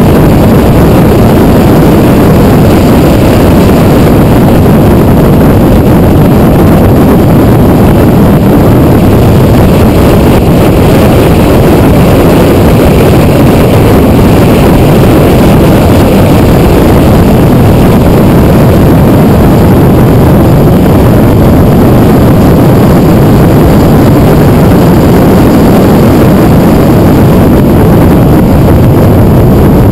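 Loud, steady rush of wind and road noise on a camera mounted on the nose of a Porsche 911 Turbo lapping a track at speed, with the air blast overloading the microphone.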